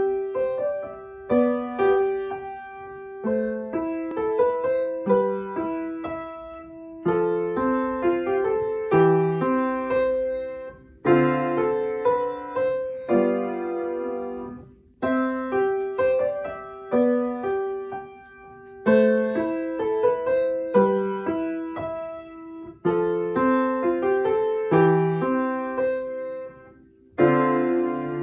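Upright acoustic piano playing a student piece in short phrases of about two seconds, each starting with freshly struck notes that then ring and fade, mostly in the middle register.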